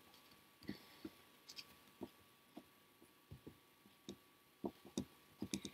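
Faint, irregular small clicks and taps of fingers handling fine thread while tying knots on a lace pillow, a few coming close together near the end.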